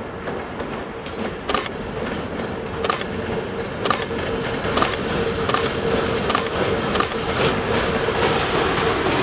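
Freight train hauled by a VL10U two-section DC electric locomotive, rumbling as it approaches and passes, growing louder. A steady hum runs under it, and a series of sharp clacks from the wheels crossing rail joints comes faster and faster as the train nears.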